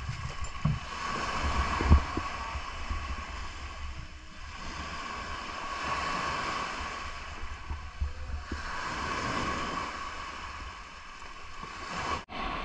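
Wind buffeting the microphone over the wash of surf on a shingle beach, swelling and easing every few seconds, with a few sharp knocks in the first two seconds.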